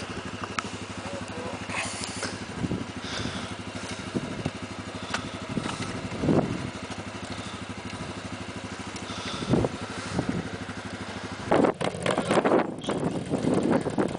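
ATV engine idling steadily, then revving in irregular surges from about eleven seconds in as the quad climbs a steep, brushy slope.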